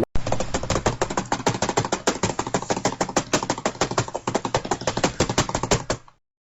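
Sound effect of rapid, irregular clicking taps, several a second, that cuts off suddenly after about six seconds.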